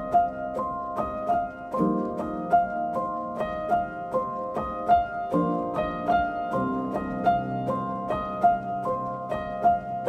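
Background music: a quick, even run of plucked notes over held lower chords that change every second or two.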